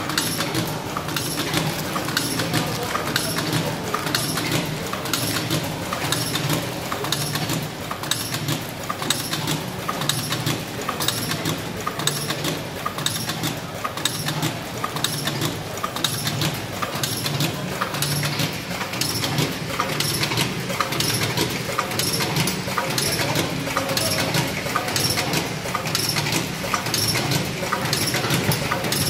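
Auger-filling sachet packaging machine running: a quick, even mechanical clacking over a steady motor hum.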